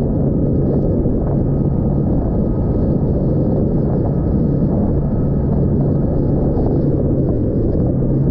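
Mercury Pro XS 225 V8 outboard running at speed on a RIB in rough water, a steady low hum buried under heavy wind rush on the camera's microphone.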